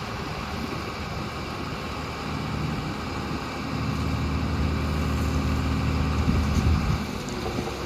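Diesel engine of a JCB 3DX backhoe loader running under load, climbing in revs over a few seconds and then dropping back near the end.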